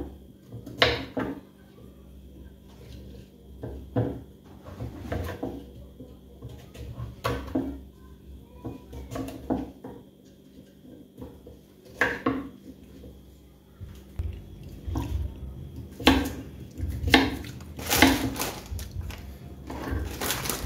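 Kitchen knife cutting pumpkin and potato on a wooden cutting board: irregular knocks of the blade against the board, coming more often in the last few seconds.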